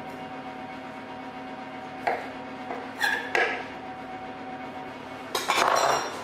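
Broccoli being cut into florets and handled on a kitchen worktop: a few short knocks and clinks about two and three seconds in, then a louder, longer clatter near the end, over a steady background hum.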